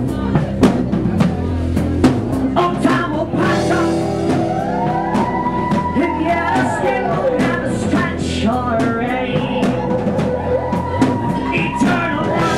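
Rock song played by a full band: a steady drum-kit beat under bass, guitar and keyboards, with a sung melody line.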